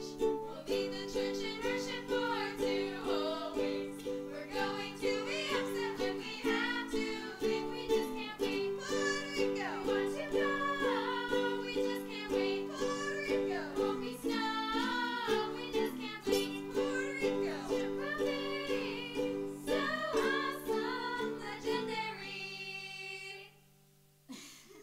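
A small group of young voices singing a song with a strummed acoustic guitar and ukulele. Near the end the song finishes on a held final chord and stops.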